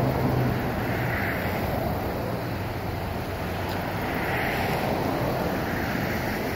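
Highway traffic passing below: a steady rush of tyres and engines that swells as single cars go by, with some wind on the microphone.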